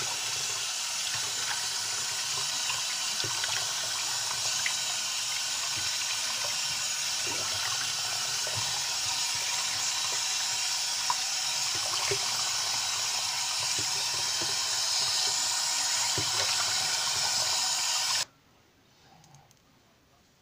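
Bathroom tap running steadily into the sink, with small splashes as water is scooped onto the face to rinse off cleansing cream. The running water stops abruptly near the end.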